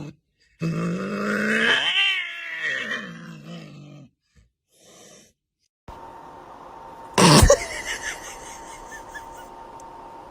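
An animal's drawn-out call that rises and then falls in pitch, followed after a short silence by a single sharp knock.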